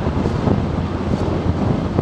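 Wind rushing over the microphone of a moving motorcycle, with the bike's engine and road noise underneath, steady throughout.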